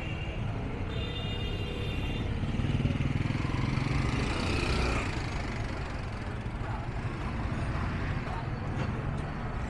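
Street traffic: the steady rumble of passing cars and motorcycles, swelling as a vehicle passes close by about three to five seconds in, with a brief high tone about a second in.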